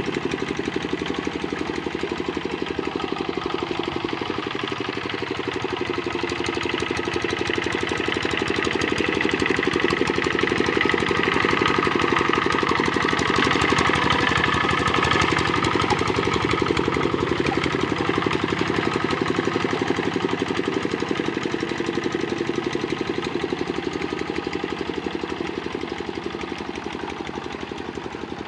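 Kubota RD65 single-cylinder diesel engine of a walk-behind hand tractor running steadily with a rapid knocking beat. It grows louder toward the middle and fades near the end.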